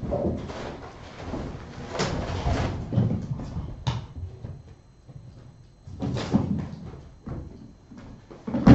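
Kittens at play: irregular thumps and knocks in bunches, with a quieter stretch in the middle and the loudest knock right at the end.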